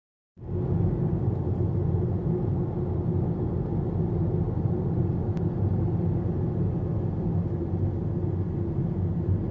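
Steady low rumble of a car's engine and tyres, heard from inside the cabin as the car crawls forward in slow traffic. There is a faint click about halfway through.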